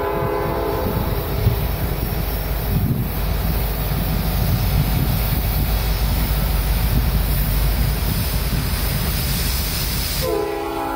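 Norfolk Southern diesel locomotive leading a unit coal train: its air horn chord cuts off about half a second in, then the engine and the train's wheels rumble steadily on the rails as it approaches, and the horn sounds again about ten seconds in.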